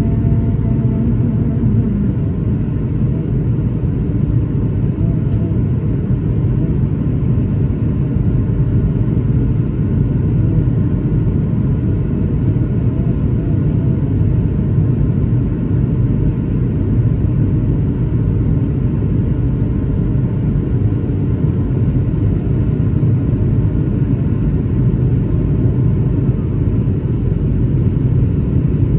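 Airbus A220-300's Pratt & Whitney PW1500G geared turbofans and the rushing air, heard inside the cabin during the climb after takeoff: a steady low roar with a faint high whine over it.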